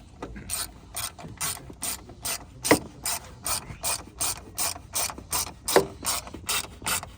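Hand ratchet being worked with steady back-and-forth strokes, its pawl clicking about twice a second, most likely driving home fasteners on the car as it is reassembled. Two louder knocks come in, one near three seconds and one near six.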